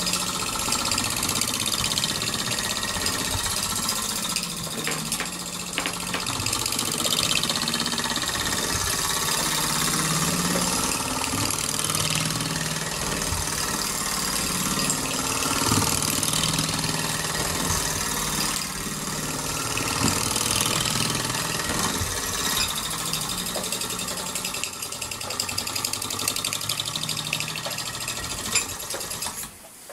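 Mamod SR1A live-steam model steam roller running along a tabletop under its own steam, its small engine beating rapidly and steadily.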